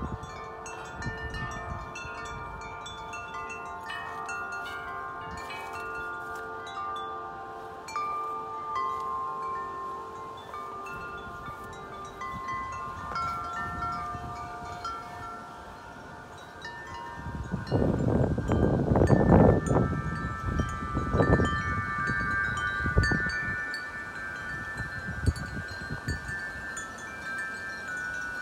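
Wind chimes ringing in the wind, many overlapping sustained notes. Wind gusts buffet the microphone, the loudest a little past halfway through, with a few smaller ones after it.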